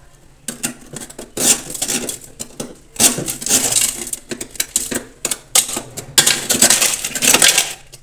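Thawing frost and ice being scraped and broken loose by hand from the inner wall of a switched-off freezer during defrosting: an irregular run of crackling, clicking scrapes that starts about half a second in.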